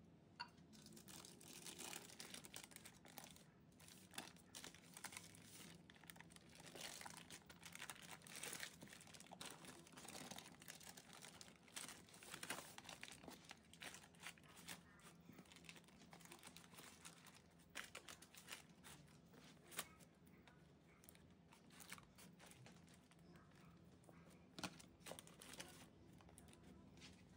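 Baking paper crinkling and rustling faintly in irregular bursts as a sponge cake roll is rolled up inside it.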